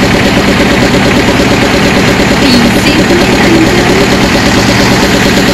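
Motor vehicle engine idling, loud and steady.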